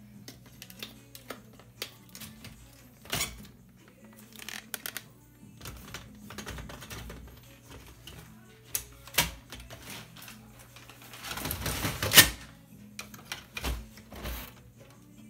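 Plastic clicks, taps and knocks of toner cartridges being handled and seated in an HP LaserJet's cartridge drawer. A longer scraping rustle builds about eleven seconds in and ends in a sharp knock.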